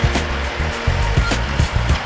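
Background music with a steady drum beat and bass line.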